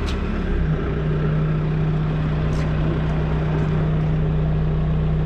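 Tractor engine running steadily, its note stepping up to a higher pitch just under a second in as the revs rise.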